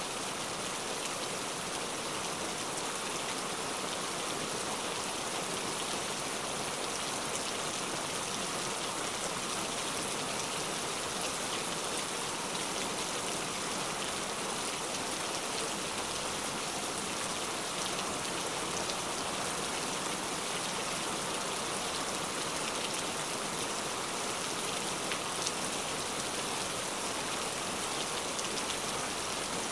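Steady rain falling: an even hiss with the fine patter of individual drops striking surfaces, unchanging in strength.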